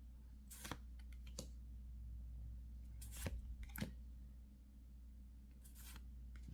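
Pokémon trading cards being handled and slid one behind another by hand: a handful of short swishes and clicks, spaced a second or two apart, over a faint low hum.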